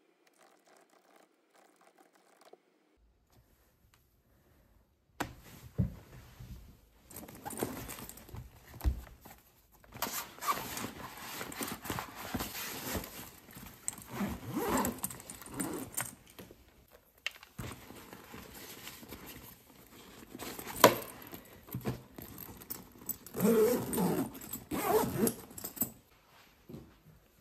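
Near silence at first, then a padded SwissGear backpack being packed and zipped shut: fabric rustling, items shuffled inside, zippers running and scattered clicks and knocks.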